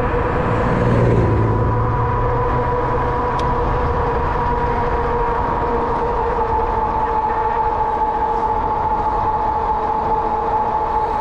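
Wind buffeting the microphone on a Rad Rover 6+ e-bike ridden fast. Under it is the geared hub motor's steady two-tone whine, which drifts slightly lower in pitch partway through as the bike slows a little.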